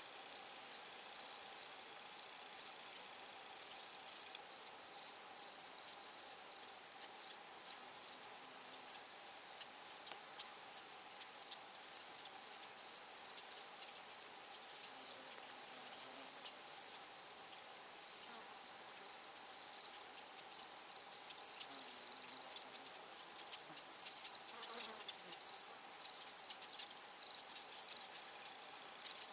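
Steady insect chorus: a continuous high-pitched trilling in two close pitches, cricket-like, that runs without a break.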